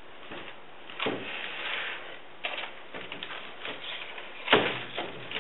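A mold frame being handled on a workbench while gel coat is brushed on: a string of irregular scrapes and rubs, with a louder scrape about four and a half seconds in.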